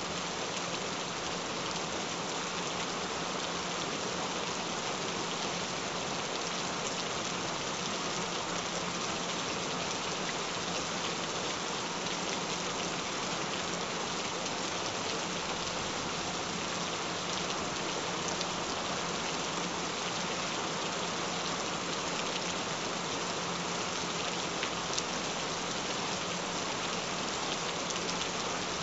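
Steady rain falling: an even hiss of drops with scattered small drip ticks, unchanging throughout, over a faint low steady hum.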